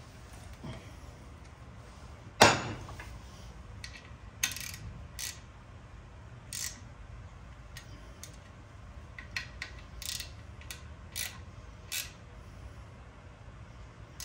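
Hand socket ratchet worked in short strokes, tightening bolts on a Kawasaki KFX 400 engine, each back-swing a brief clicking burr. A sharp metal knock about two seconds in is the loudest sound.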